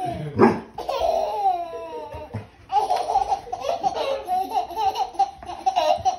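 Baby laughing hysterically in high-pitched squeals. First come up-and-down giggles, then, after a short break about two and a half seconds in, one long pulsing laugh.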